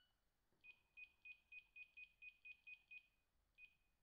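Samsung SP-R5210pp cordless handset giving short high key-press beeps, about ten in quick succession at roughly four a second, then a single beep near the end, as its keys are pressed to step through its menu.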